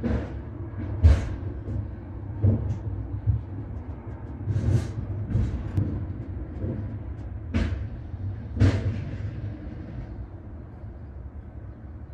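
A trailer being loaded at a dock: a steady low rumble with a handful of heavy thuds and clanks, the loudest about a second in.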